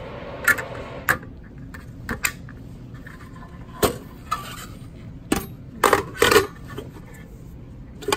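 Metal lid and filter retention plate of an Aesculap sterilization container being handled and fitted: a string of sharp metal clicks and clanks, about nine in all, loudest around six seconds in.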